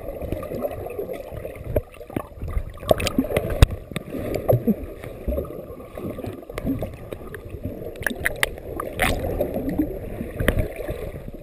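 Muffled underwater sound of water churned by swimmers, heard through the camera's waterproof housing: a dense low gurgling rumble with bubbly little glides and scattered sharp clicks.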